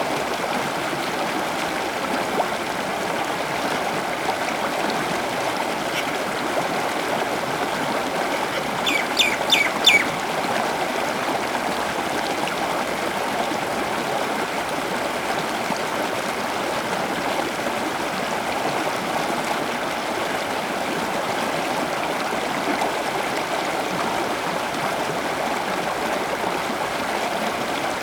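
Steady rush of running water, with a bird giving four quick, sharp, high calls about nine seconds in.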